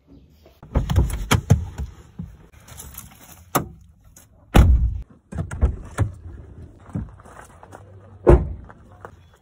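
Rustling and several thumps as a bag is pulled off a car seat and someone climbs out of the car, then a car door slams shut about eight seconds in.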